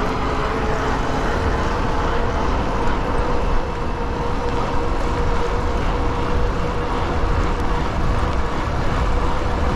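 E-bike riding along a wet road: a steady electric-motor whine over a constant rush of wind and tyre noise on wet pavement.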